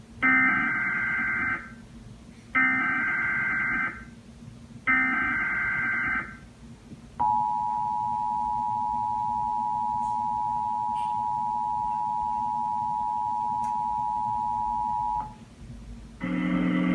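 Emergency Alert System broadcast: three short screeching SAME data header bursts about a second apart, then the two-tone EAS attention signal held steadily for about eight seconds and cutting off suddenly. A music bed starts near the end.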